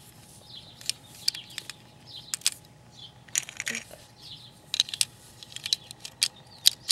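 Plastic Lego bricks clicking and clattering as small hands pick them up and press them onto a model: a dozen or so short, irregular clicks.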